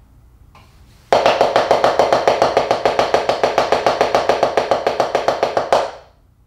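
Taiko sticks (bachi) playing a steady run of loud sixteenth notes on a drum practice pad, rapid even strokes about eight a second. It starts about a second in and stops with a harder final stroke near the end.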